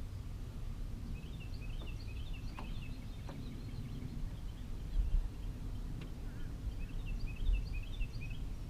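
A songbird singing two bursts of quick, high chirping notes, about a second in and again near the end, over a steady low rumble. A few faint ticks are heard in between.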